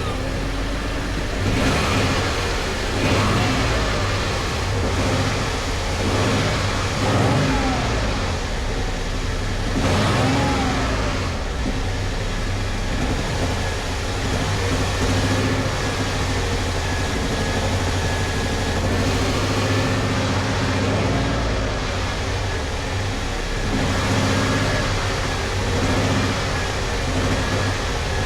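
Motor vehicle engine running steadily under way, with a low hum and road noise.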